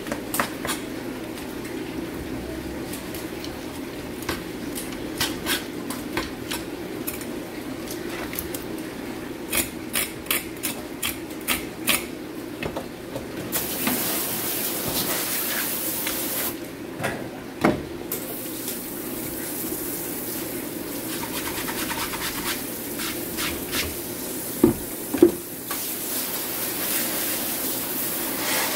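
Sharp clicks and taps of a knife trimming a red sea bream fillet on a plastic cutting board, then a hand-held water spray nozzle hissing in spells as the fish and board are rinsed, with two loud knocks about 25 seconds in. A steady low hum runs underneath.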